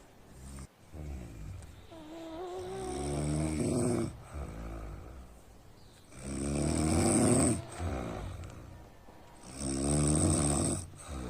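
A person snoring: three long snores a few seconds apart, the last two the loudest.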